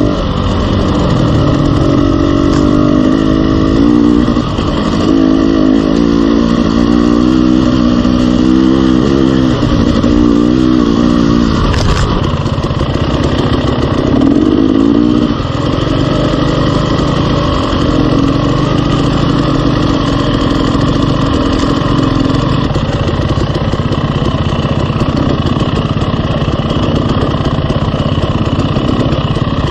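KTM 300 two-stroke dirt bike engine, revving up and down repeatedly through the first half as the rider picks through the trail, with one sharp knock near the middle, then running steadier at low speed.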